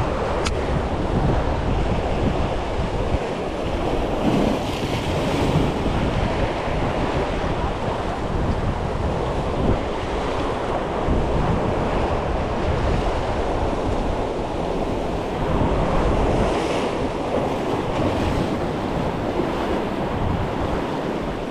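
Wind buffeting the microphone over waves washing against a jetty: a loud, steady rumble and hiss that swells and eases.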